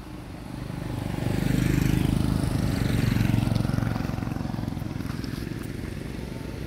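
A motor vehicle passing along the road: its engine grows louder over the first two seconds, holds, then fades away.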